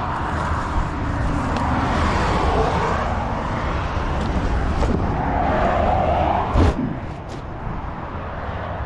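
Road traffic, vehicles swelling past one after another over a steady low rumble, with one sharp knock about six and a half seconds in.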